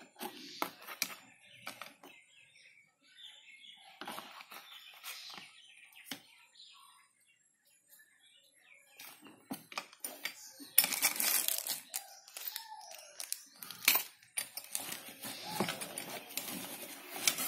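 Rustling, scraping and clicking of a cardboard box, foam packing and plastic camera parts being handled during unpacking, with a quieter stretch in the middle and denser, louder handling through the second half.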